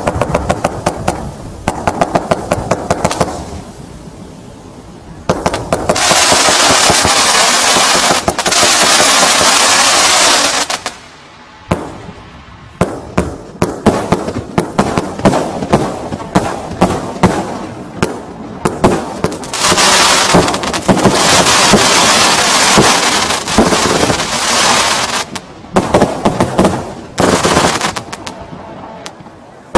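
Tango 92-shot barrage firework cake firing: rapid volleys of sharp shots and bursts. About five seconds in and again near twenty seconds, there are long stretches of dense, continuous crackling. The shots thin out near the end.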